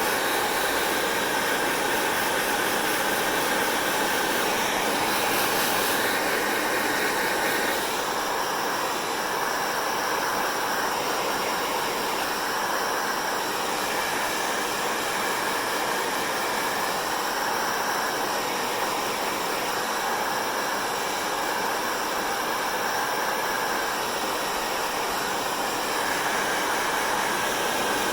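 Hair dryer blowing steadily, a constant whirring hiss whose tone shifts slightly every few seconds.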